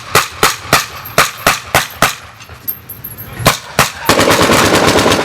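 Battle gunfire: sharp shots about three a second, a short lull, two more shots, then a dense, loud, continuous burst of fire from about four seconds in.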